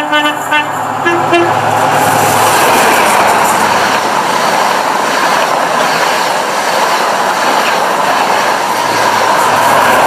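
InterCity 125 (HST) sounding its horn in short blasts on two notes as it approaches, then the train rushing past at speed with a steady loud roar of wheels and engine.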